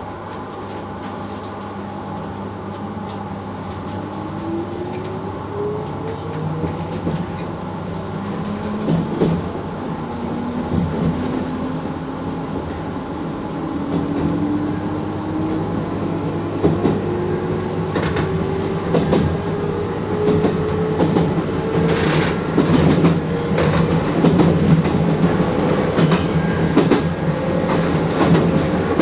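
A JR 719 series electric multiple unit pulling away and gathering speed. Its motor and gear whine rises steadily in pitch, and the wheels click over rail joints, growing louder as the train accelerates.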